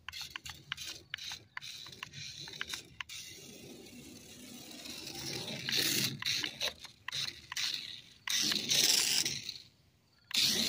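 Adventure Force RC stunt car driving on a trampoline mat: its small electric motor and gears run in bursts, and its rubber tyres scrape on the mat, with sharp clicks in the first few seconds. The loudest stretches come about two-thirds of the way in and again at the very end, as the car runs close by.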